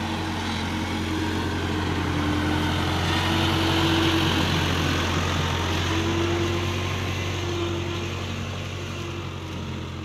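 Case 580K backhoe's diesel engine running steadily with a low hum, growing a little louder towards the middle and easing off near the end.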